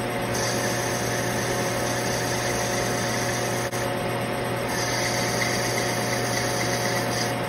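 Metal lathe running, spinning brass bar stock while a cutting tool turns its diameters and then parts it off: a steady machine hum with a few constant tones and a hiss of cutting.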